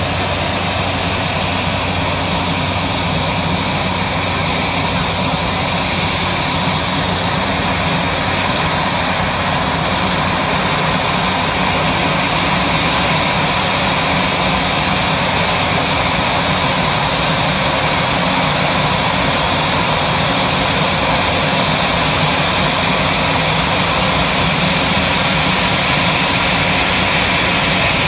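Twin-engine jet airliner taxiing with its engines at low thrust, a steady loud whine and hiss blended with the rush of water-cannon spray, growing slightly louder as the aircraft comes closer.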